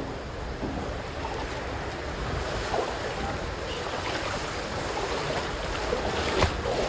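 Typhoon wind blowing steadily, an unbroken rushing noise, with a small knock near the end.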